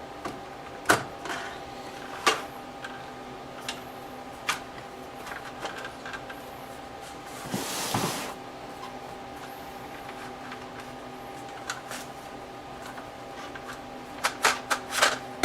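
Gun vise parts being handled and slid together: a few scattered light clicks and knocks, and one short scraping rub about halfway through, over a steady background hum.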